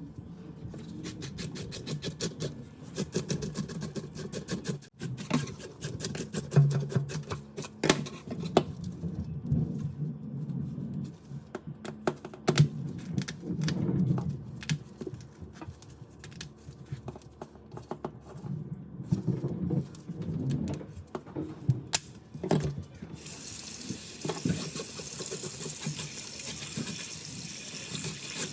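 Kitchen work: irregular knocks and clicks of utensils and dishes, then a tap running steadily into a sink for the last five seconds or so.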